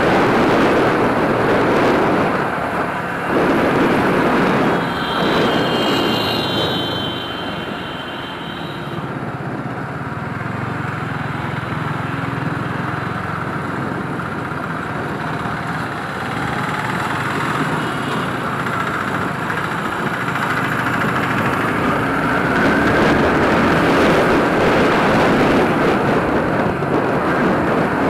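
Wind rushing over the microphone on a moving Yamaha R15 V3 sport motorcycle, with its single-cylinder engine running underneath. A high steady tone sounds for about four seconds, starting about five seconds in.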